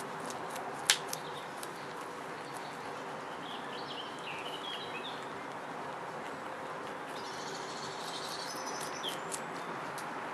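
Pet rabbits crunching on a carrot: scattered crisp clicks of chewing, with one sharp, louder click about a second in. Small birds chirp in the background around four seconds in and again around eight seconds, over a steady hiss.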